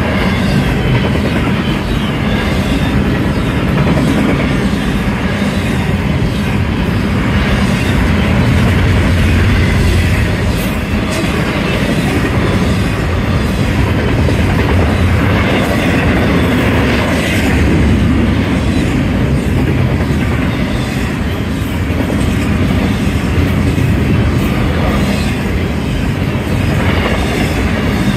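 Union Pacific double-stack intermodal train passing at high speed, its container well cars making a loud, steady rumble of steel wheels on rail.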